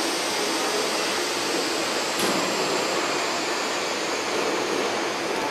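Steady rushing background noise with no clear pitch or rhythm, with a faint click about two seconds in.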